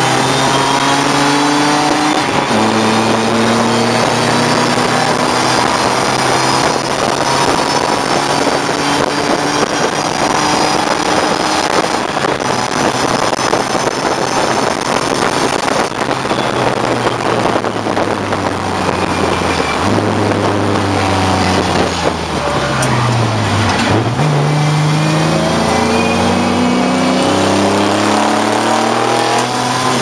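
BMW E34 race car's engine under hard racing load, heard from inside the stripped cabin: the revs climb and it shifts up a gear about two seconds in, then holds high revs for a long stretch. About two-thirds of the way through the revs fall away and then climb again as it comes off the throttle and accelerates back out.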